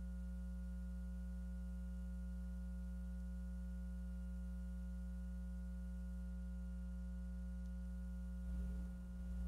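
Steady electrical hum with a stack of overtones, like mains hum picked up on the audio line. Faint low noise comes in near the end.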